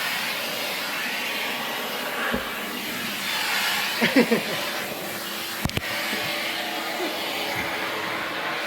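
Vacuum cleaner running steadily, used to pull loose fur off a cat. A brief cluster of short pitched sounds comes about four seconds in, and a sharp knock just before six seconds.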